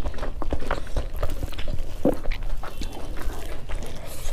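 Close-miked eating: chewing and lip smacking, with fingers squishing and mixing rice into beef innards curry. It comes as a dense run of short clicks and smacks.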